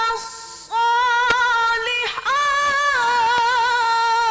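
A qari's voice reciting the Quran in the melodic tilawah style. The syllables are drawn out in long held notes with wavering ornaments, after a short breath about half a second in.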